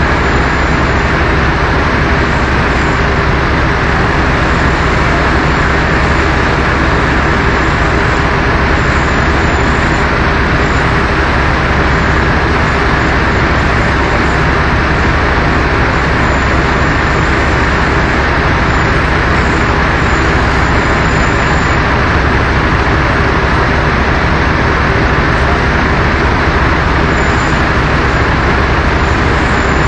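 Steady, loud noise of running machinery with a low hum underneath, unchanging and with no separate knocks or impacts.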